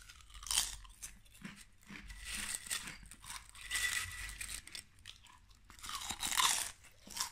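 Potato chips crunched and chewed close to the microphone, in several bursts of crisp crunching, the loudest just after the start and again near the end.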